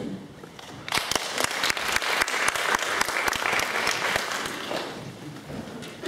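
Audience applauding in a hall, starting about a second in and dying away near the end.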